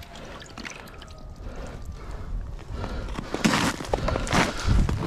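Water and slush splashing and crunching in an ice-fishing hole as a bare hand reaches in for the tip-up line: quiet at first, then several sudden sloshes and crunches in the second half.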